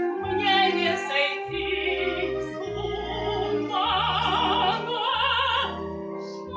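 Music: a woman singing in an operatic style, with a marked vibrato on long held notes, over an instrumental backing with a moving bass line.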